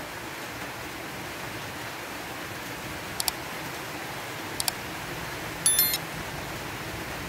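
Subscribe-button animation sound effects: a double mouse click a little past three seconds in, another near four and a half seconds, then a short bright bell chime near six seconds. A steady hiss runs underneath.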